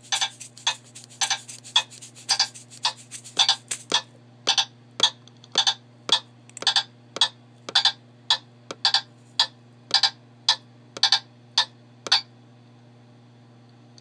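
Metronome ticking steadily at about two beats a second, stopping about twelve seconds in. A faint steady hum lies underneath.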